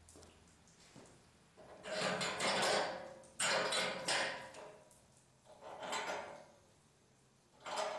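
Steel parts of a Harbor Freight band saw mill's bed being shifted by hand: four scraping, sliding metal-on-metal sounds, each about a second long. The first two are the loudest.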